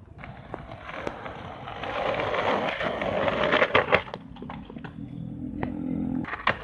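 Skateboard wheels rolling on asphalt, the rumble building over the first two seconds, with a couple of sharp clacks about four seconds in. A low steady hum joins in the second half and stops shortly before the end.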